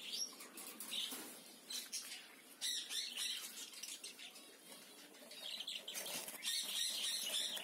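Faint wing flutters and light chirps of caged birds in short scattered bursts. The fuller ones come about three seconds in and again around six to seven seconds in.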